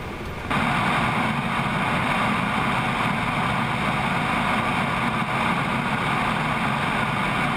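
Steady rushing roar of airflow and engine noise outside a Boeing 777 freighter on approach, with its landing gear extended, heard from a camera mounted under the fuselage. It cuts in suddenly about half a second in.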